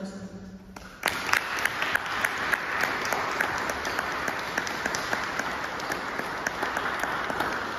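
Audience applauding, a dense patter of hand claps starting suddenly about a second in and carrying on steadily.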